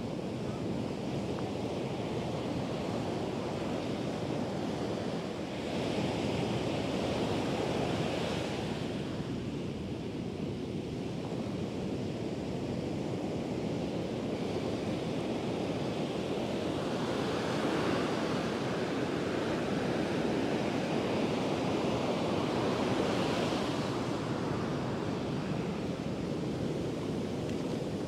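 Atlantic surf breaking and washing up on a sandy beach: a steady rush of water that swells louder a few times as waves break.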